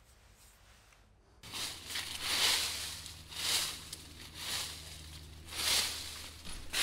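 Footsteps through dry fallen leaves, about one step a second, starting about a second and a half in.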